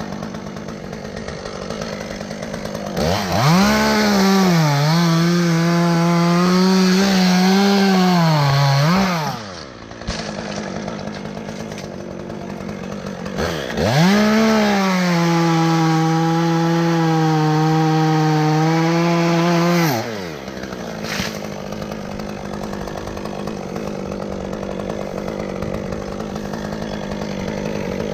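Two-stroke chainsaw idling, then revved up and cutting twice, about six seconds each, its pitch dipping and settling lower under load in the wood before dropping back to idle.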